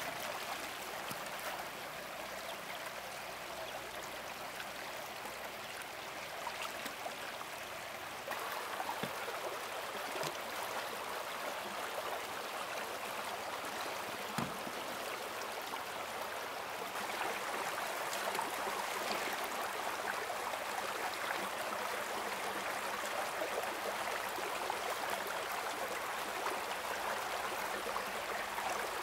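Stream water running over stones, a steady rushing that grows louder about eight seconds in and again a little past halfway, with a single knock partway through.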